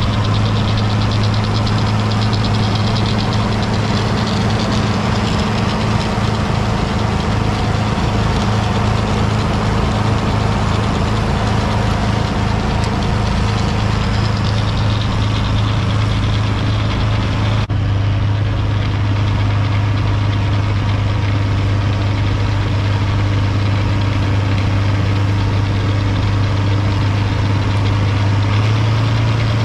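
International 1256 tractor's turbocharged six-cylinder diesel running steadily under load, a continuous even drone, as it powers a Schweiss snow blower throwing snow.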